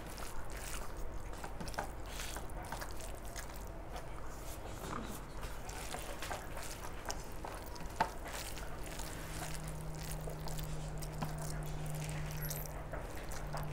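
Close-up eating sounds: wet squishing and stirring as rice is worked together with dal and curry, among many small clicks. A steady low hum comes in about two-thirds of the way through.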